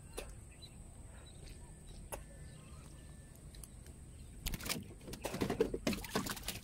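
A speared tilapia is put into a small boat, giving a quick flurry of splashes and knocks about four and a half seconds in. Before that there are only a couple of faint clicks.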